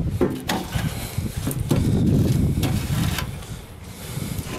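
A trowel spreading and smearing wet refractory cement across the metal inside of a gas grill, making rough scraping and rubbing sounds with a few sharper scrapes.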